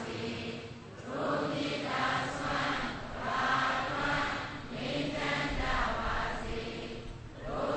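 A congregation chanting a Buddhist recitation together in unison, in phrases with short pauses for breath.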